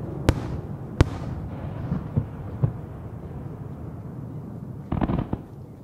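Japanese aerial firework shells by Kita-Nihon Hanabi Kogyo bursting: two sharp booms in the first second, a few softer thuds after, and a low rumble of echoes between. Near the end comes a quick run of smaller pops.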